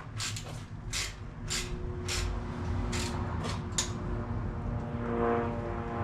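Irregular sharp metallic clicks and clinks of hand tools on engine bolts, over a low steady drone. From about five seconds in, the drone grows louder and takes on a pitched, engine-like tone, like a propeller aircraft flying over.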